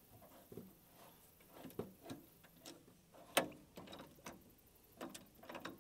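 Scattered light clicks and knocks of hand work on a copper water line and a small tool or fitting clamped on it, with one sharper knock about three and a half seconds in.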